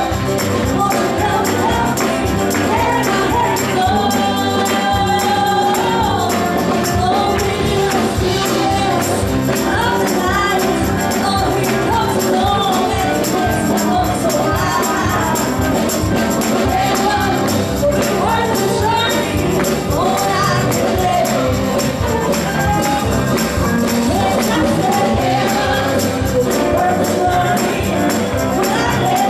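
Gospel singing with a tambourine and band backing, a steady beat throughout.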